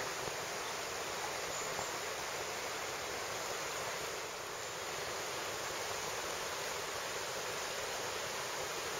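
Shallow river running over a stony riffle: a steady rush of water.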